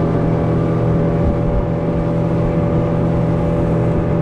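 Mercury F100A four-stroke outboard running at a steady speed, carrying the boat over the water, with a steady drone under the rush of wind and water.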